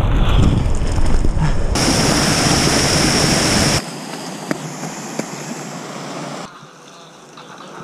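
Mountain bike ridden fast down a dirt trail, with wind buffeting the body camera's microphone over the tyre rumble; about two seconds in it turns into a louder, steady hiss for two seconds. It then cuts abruptly to a much quieter stretch with a few faint clicks.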